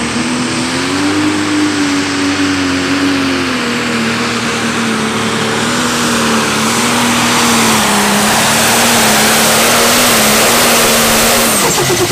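John Deere Pro Stock pulling tractor's turbocharged diesel engine running flat out under load as it drags the weight-transfer sled: a loud, steady high-revving drone whose pitch rises slightly about a second in, holds, then drops sharply near the end.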